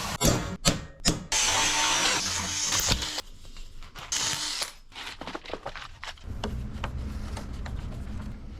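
Metalwork on a steel car body frame: several short bursts of tool noise that stop and start, with sharp clicks between them.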